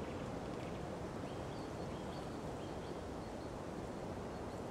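Low, steady outdoor background hiss with a few faint, short high chirps scattered through it.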